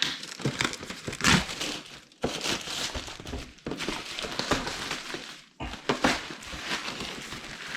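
Packaging being handled as a parcel is unpacked: rustling and crinkling, with two short pauses.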